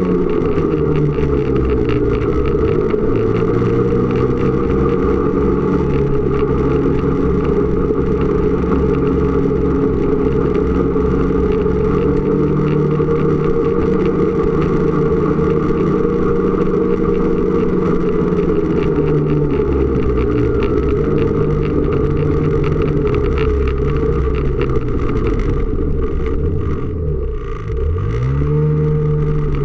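Snowmobile engine running under steady throttle while riding. Its pitch sags and recovers a couple of times, and near the end it drops off sharply as the throttle eases, then revs back up.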